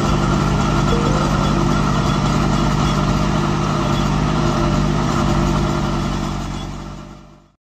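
Deutz-Fahr Agrolux 70 tractor engine running steadily while driving a rotary tiller through the soil. The sound fades out near the end.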